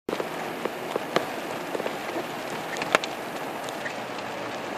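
Steady rush of water against a car, heard from inside, with scattered sharp taps of water hitting the body or glass.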